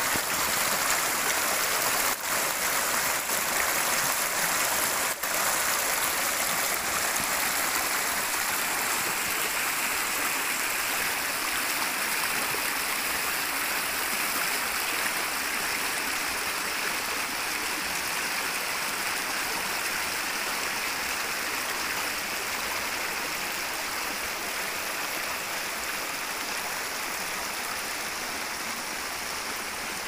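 Small stream flowing: a steady rushing and burbling of water that softens slightly toward the end.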